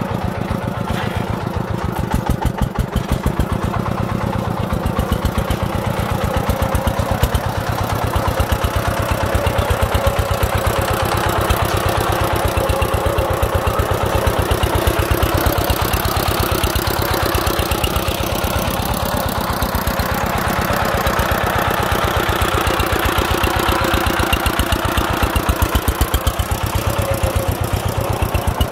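Single-cylinder diesel engine of a loaded công nông farm truck chugging steadily at low speed, its firing strokes in a rapid, even beat.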